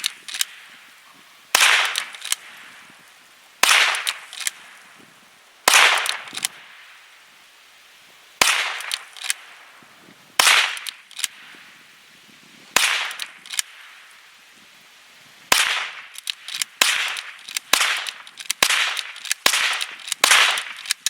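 Henry .22 lever-action youth rifle fired shot after shot, each sharp crack followed by the click-clack of the lever being worked to chamber the next round. About a dozen shots, roughly two seconds apart at first, then quicker, about one a second, near the end. The rifle cycles and feeds without a jam.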